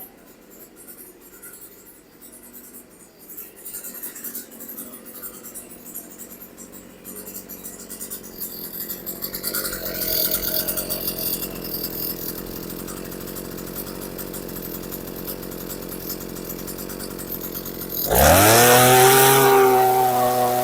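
Earthquake 43cc two-stroke post-hole digger engine running steadily. About 18 seconds in it is throttled up, its pitch rising quickly and then holding at a high, even speed.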